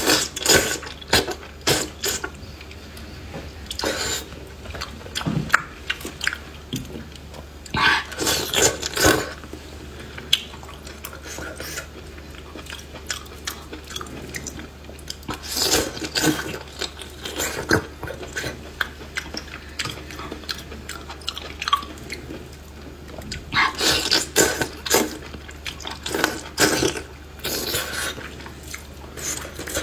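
Close-miked wet chewing, slurping and lip smacking of chewy lamb intestines in chili oil, coming in clusters of bites with quieter pauses between.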